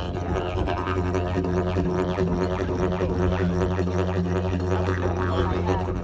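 Didgeridoo played live, a steady low drone with rhythmic pulsing in its overtones.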